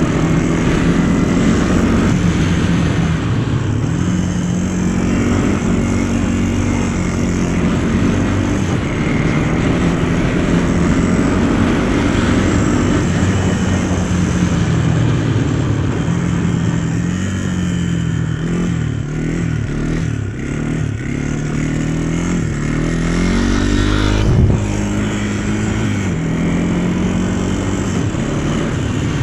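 A vehicle engine running under way, its pitch rising and falling as it speeds up and slows, over a steady rushing noise. A single thump stands out about 24 seconds in.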